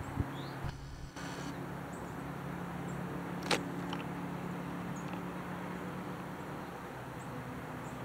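Steady low hum of distant traffic, with a few faint, short, high chirps and a single sharp click about three and a half seconds in.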